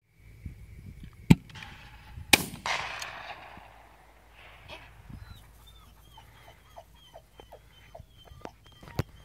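A 12-gauge shotgun fired twice in the open, two sharp reports about a second apart, the second trailing off in a rolling echo. After the shots comes a run of short, high-pitched falling calls.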